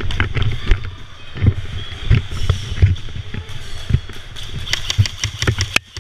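Airsoft guns firing: scattered sharp shots, then a rapid burst near the end, over a low rumble.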